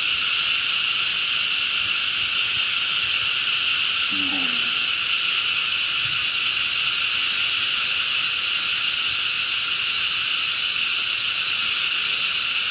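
Dense, steady insect chorus, a continuous high shrill, with one short low call about four seconds in.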